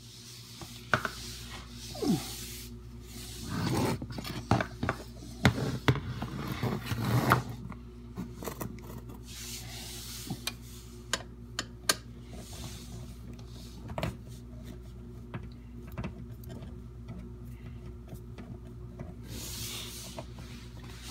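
Scraping, rubbing and clicking of a Phillips screwdriver being worked on the screws that hold a dishwasher's water inlet valve, with knocks of hand and tool against the metal underside. A dense run of scrapes and knocks comes a few seconds in, then scattered clicks, over a steady low hum.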